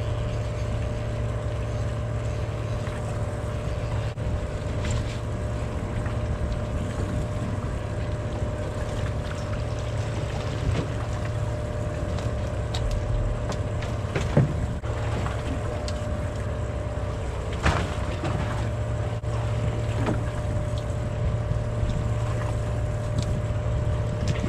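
Fishing boat's engine idling with a steady low hum. Two short knocks stand out, about fourteen and eighteen seconds in.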